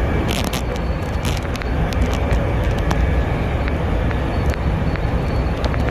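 Interior running noise of a Budd-built SEPTA Silverliner electric multiple-unit car at speed: a steady low rumble of wheels on rail, with frequent short clicks and rattles and a faint high whine.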